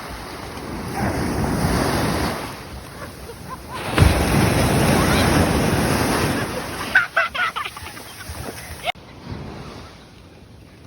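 Ocean waves breaking on a beach: the surf swells once, then a second wave breaks sharply about four seconds in and washes for a few seconds, with wind on the microphone.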